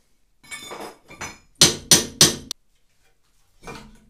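Hammer blows on a BMW E36's front suspension as the hub is knocked free: a few lighter knocks, then three hard strikes in quick succession.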